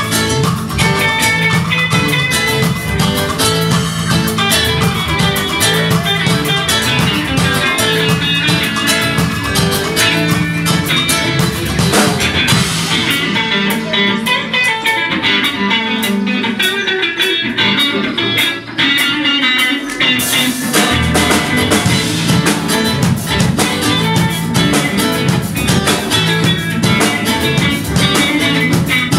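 Live reggae band playing with electric guitars and drums. About halfway through, the cymbals and bass drop out for several seconds, leaving mainly guitar, and then the full band comes back in.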